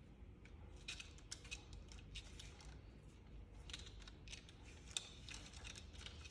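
Indian ringneck parrot making faint, irregular clicks and ticks, a few with a brief high squeak-like edge.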